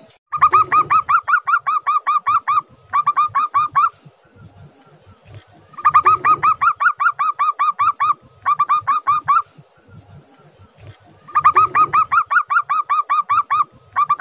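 Zebra dove (perkutut) song: rapid runs of short staccato cooing notes, about eight a second. Each run is followed after a brief pause by a shorter burst, and the phrase comes three times, a few seconds apart.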